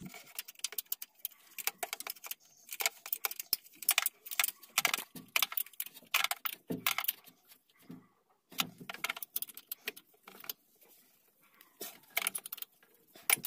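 Metal spanner clinking and clicking on the carburetor's 10 mm mounting nuts as they are tightened, in short irregular clusters with brief pauses; the nuts are done up tight to stop intake air leaking in.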